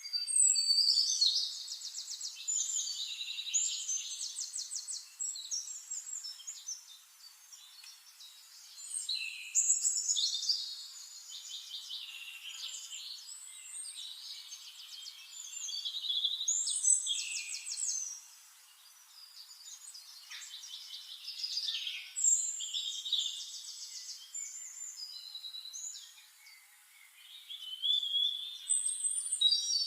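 Songbirds singing: bursts of rapid trilled and twittering notes, each lasting a few seconds and returning about every six seconds, over a faint steady hiss.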